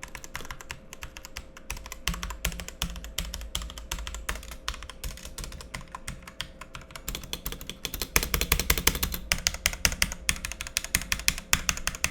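Continuous fast typing on an Ant Esports MK1300 Mini 60% mechanical keyboard with Outemu red linear switches: a rapid stream of key clacks, a switch sound test. The keystrokes get louder about eight seconds in.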